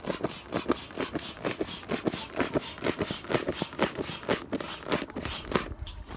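Bellows air pump worked in brisk, even strokes, about three or four a second, each stroke pushing a puff of air through the hose to inflate an inflatable boat. The pumping stops shortly before the end.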